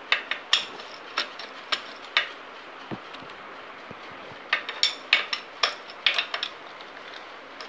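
Sharp metal clicks and clinks of a 14 mm wrench working the bolt of a square-taper bicycle crank as it is tightened onto the bottom-bracket axle. They come in irregular clusters, with a single dull knock about three seconds in.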